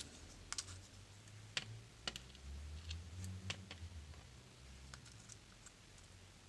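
Small lock parts and tools being handled on a work surface: faint, scattered light clicks and taps, a few sharper ones between about one and a half and three and a half seconds in, with a soft low rumble of handling around the middle.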